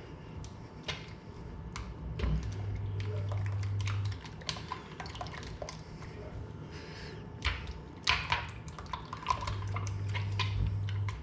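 Kitchen clatter: dishes and utensils clinking and knocking at scattered moments, with a steady low hum that sounds twice for a second or two.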